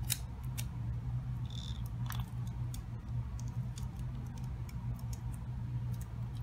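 Light ticks and clicks of hands handling a wooden mousetrap and its wire while taping the wire end down, over a steady low hum.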